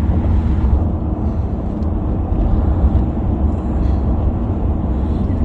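Steady low road noise inside a moving car's cabin at highway speed.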